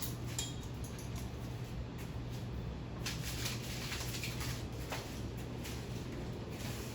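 Craftmade 52-inch ceiling fan running on high speed: a steady low motor hum with the rush of the blades and faint irregular ticks.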